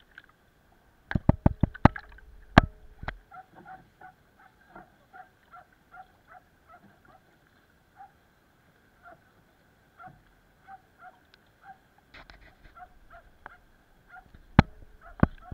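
Sharp hollow knocks on a plastic sit-on-top kayak: a quick run of them about a second in and a few more near the end. Between them comes a string of short, faint pitched sounds, about two a second.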